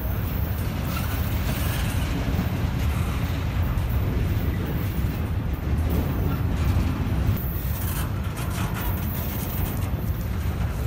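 Intermodal freight train's container cars rolling past close by: a steady low rumble of steel wheels on the rails.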